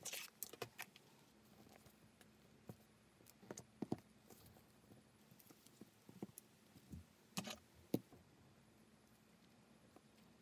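Scattered light knocks and clicks of hand work on a cutting mat: a steel ruler, a paper pattern and round metal pattern weights being moved and set down on crocodile leather. The knocks come in three short clusters: at the start, around four seconds in, and around seven and a half seconds in.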